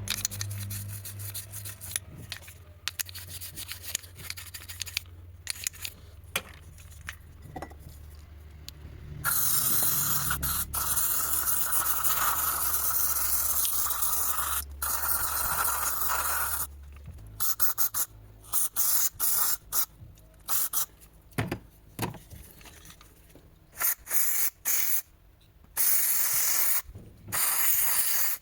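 Aerosol throttle body cleaner spraying. First comes scraping and clicking, then one long hiss of spray lasting about seven seconds, then a string of short spray bursts. A low steady hum runs underneath and stops about two-thirds of the way through.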